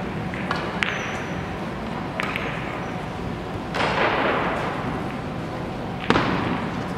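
Carom billiard balls clicking in a large echoing hall: a sharp click about a second in as the cue strikes the ball, a second click a little later as balls meet, and a louder knock near the end. A brief rush of noise comes in around the middle.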